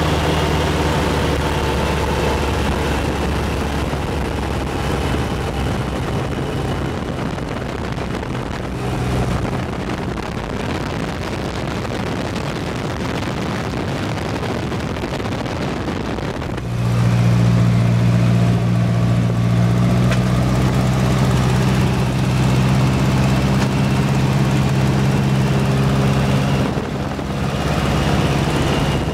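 A propeller airplane's piston engine drones steadily, heard from inside the cabin under a rush of air noise. About 17 s in the engine note gets louder, with a strong low hum, and it eases back a little near the end.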